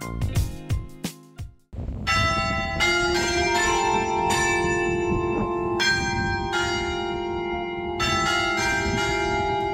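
Background music cuts off about two seconds in. Church bells in a carillon tower are then heard from close by, struck one after another at several pitches, about ten strokes. Each stroke rings on and overlaps the next into a sustained hum.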